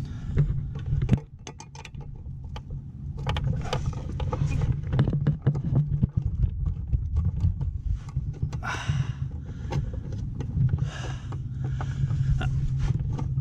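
Metal hand tools clicking and clinking against the scooter's fender bolts and bodywork, with a few short scraping sounds near the end, over a steady low hum.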